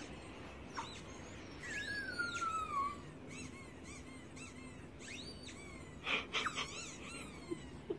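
Short high-pitched squeaks in quick clusters, with one longer falling squeal about two seconds in and a louder cluster near six seconds, played from a laptop to a chihuahua.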